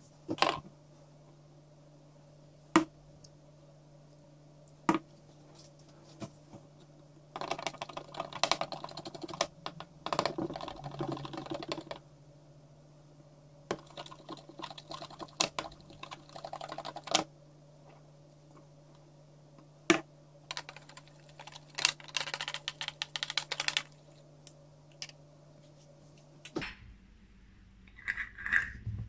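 Metal spoon scraping and stirring a thick mixture in a plastic bowl, in three stretches of rapid scratchy clicking, with a few single sharp knocks between them. A low steady hum in the background stops near the end.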